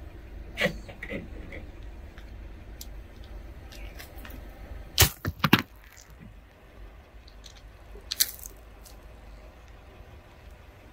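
Sharp cracks and snaps of something brittle breaking as it is crushed: a few scattered cracks, a loud quick run of three about five seconds in, and another about eight seconds in, over a steady low rumble.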